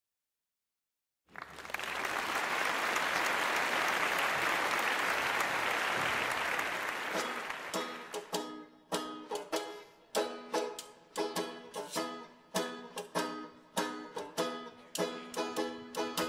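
Audience applauding for several seconds, fading out. Then a plucked-string instrument begins a melody of short ringing notes at a steady pace.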